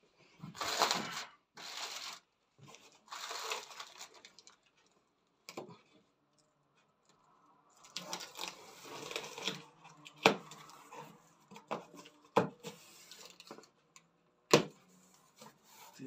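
A cardboard box being handled and opened: scraping and rustling of cardboard in several short bursts, then a few sharp knocks in the second half.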